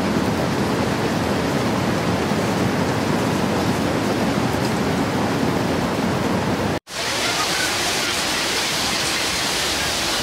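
Heavy rain pouring down in a steady rush of noise. After an abrupt cut about seven seconds in, a steady, hissier rush of floodwater spraying up as a car drives through a flooded street.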